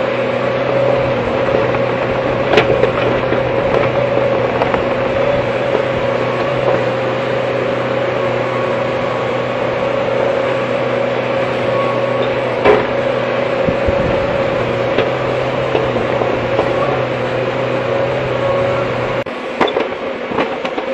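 Hydraulic excavator's diesel engine running at a steady hum, heard from the cab, with a couple of sharp knocks from the machine at work. The low part of the hum drops out near the end.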